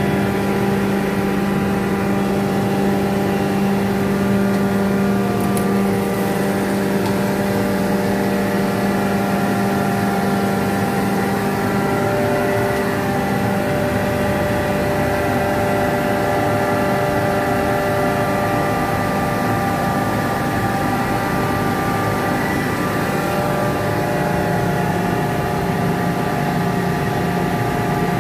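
Jaguar rotary screw air compressor running steadily under power: a constant machine drone with several steady whining tones above it.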